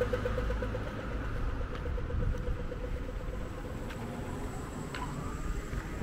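City street traffic: road vehicles passing with a low rumble. A rapid pulsing tone sounds over it for the first few seconds, then fades.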